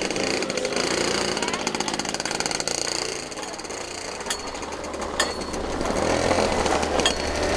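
Two-stroke kart engines running close by, a rapid pulsing rattle with a few sharp clicks; a steady low hum comes in near the end.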